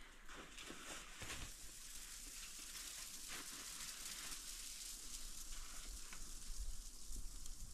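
Faint footsteps crunching in snow now and then, over a steady hiss.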